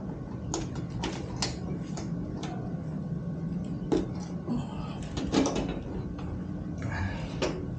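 Cardboard parcel and packaging being handled and opened: scattered knocks, clicks and rustles, over a steady low hum.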